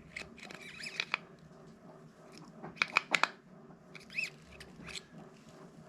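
Small metal and plastic parts of a Shimano SpeedMaster II saltwater reel clicking, scraping and squeaking as they are handled and fitted together during reassembly, in scattered clusters with the sharpest clicks about three seconds in.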